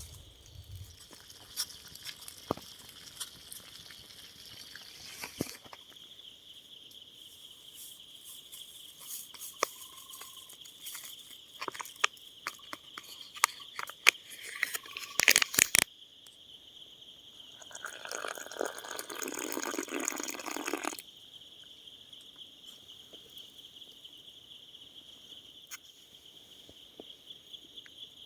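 Insects trilling steadily and high-pitched in the forest, with scattered sharp clicks and knocks through the first half and about three seconds of rustling noise a little after the middle.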